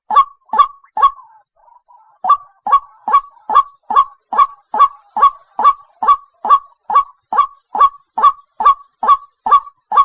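White-breasted waterhen calling a rapid, even series of short, sharp 'wak' notes, about two to three a second, with a break of about a second shortly after the start.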